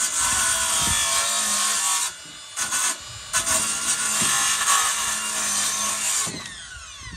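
Cordless circular saw cutting along a wooden door jamb in repeated shallow passes. The cut breaks off briefly about two seconds in, starts again, and about six seconds in the trigger is released and the blade spins down with a falling whine.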